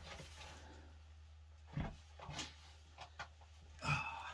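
A few faint scuffs and knocks of a person shifting on the rock floor of a tight cave passage, over a low steady hum.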